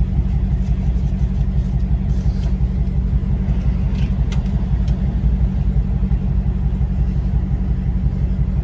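Supercharged 6.2-litre Hemi V8 of a Dodge Hellcat, still on its stock catalytic converters, running at a steady low rumble heard from inside the cabin with the windows down. A few faint clicks come about four seconds in.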